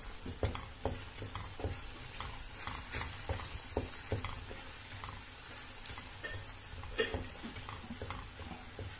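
Wooden spoon stirring a ground-meat and tomato filling in a stainless steel frying pan, with irregular scraping and tapping against the pan over a steady sizzle as the watery filling simmers.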